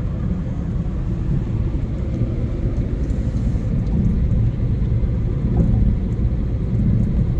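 Steady low rumble of road and engine noise heard inside a car's cabin while driving at speed.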